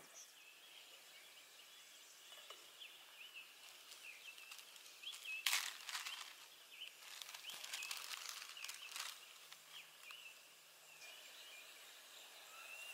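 Faint songbird chirps, many short calls scattered throughout. About five seconds in, and again a couple of seconds later, there are brief rustling and handling noises from a packet and cookware at a small camp stove.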